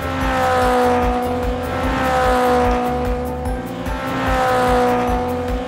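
Race car sound effect: a high engine whine that sweeps past with a slight drop in pitch, repeating about every two seconds, over background music with a steady beat.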